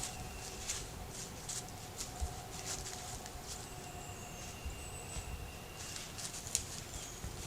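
Quiet woods: scattered light ticks and rustles, like something moving in dry leaves, over a faint steady hum, with a few thin high chirps about halfway through.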